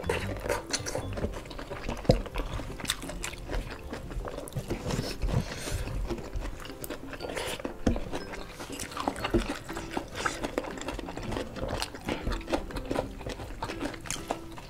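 Close-miked eating sounds: chewing, wet mouth smacks and fingers picking at fried chicken and rice, heard as many short irregular clicks and crunches. Quiet background music runs under them.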